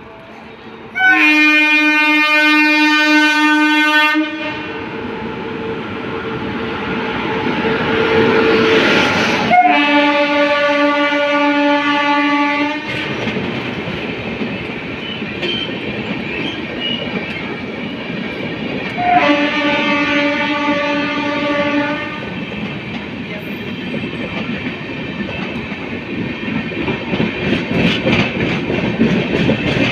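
Indian Railways Antyodaya Express sounding its locomotive horn in three long blasts of about three seconds each, the first the loudest, as it approaches and runs along the platform. Between and after the blasts the coaches rumble past, their wheels clattering over the rail joints near the end.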